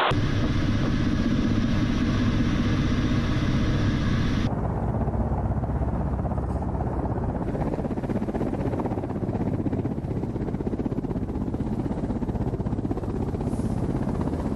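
Kamov Ka-52 attack helicopter running: a dense, steady rumble for the first four and a half seconds, then, after a sudden change, the low rotor noise of the helicopter hovering close to the ground, with fast, even pulsing from its coaxial rotor blades.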